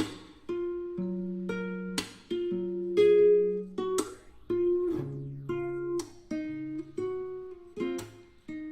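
Background music: a plucked acoustic string instrument, guitar-like, playing a run of struck chords and notes that change about every half second to second.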